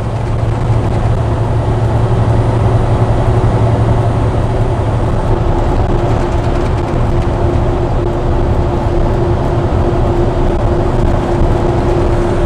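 Steady engine drone and road noise inside a truck's cab while driving, with a low hum throughout. A higher steady hum joins about five seconds in.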